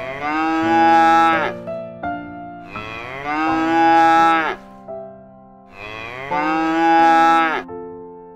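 A cow mooing three times, each a long drawn-out moo that drops in pitch as it ends, over soft keyboard backing music.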